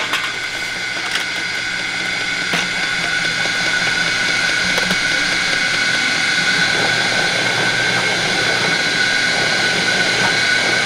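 Electric motor of a kudzu-root juicing machine running steadily with a high whine, getting a little louder a few seconds in.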